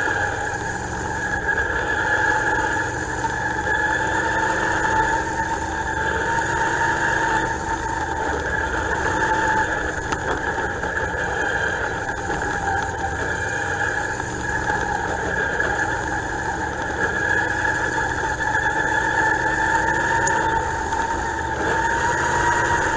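Dirt-track race car's engine, heard from inside the cockpit, running at a low, steady speed as the car rolls slowly around the track: a constant drone with little change in pitch.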